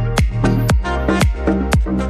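Upbeat electronic background music with a steady kick drum about twice a second.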